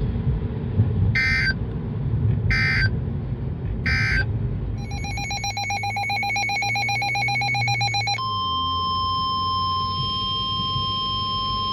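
Emergency alert signalling from a weather radio broadcast: three short screechy digital SAME data bursts, then a rapidly pulsing electronic beep for about three seconds, then the steady NOAA Weather Radio warning alarm tone near 1050 Hz held for several seconds.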